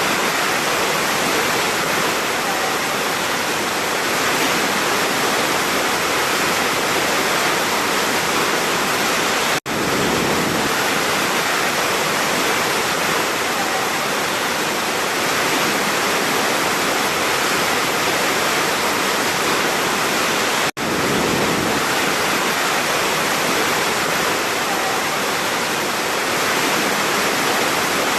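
Large waterfall pouring, a steady dense rush of falling water. The sound cuts out for an instant twice, about ten seconds in and again about twenty-one seconds in.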